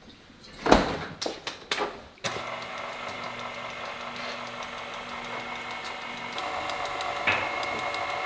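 KitchenAid stand mixer running steadily, its beater working flour into a thick cookie dough; the motor starts about two seconds in and gets louder about six seconds in. Before it starts there are a few knocks and clatter from handling the mixer, the loudest about a second in.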